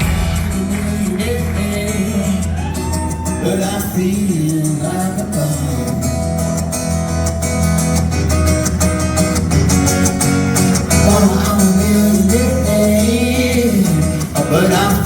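Live band performing a cover song: acoustic guitars with a steady bass line under a male lead vocal singing the melody.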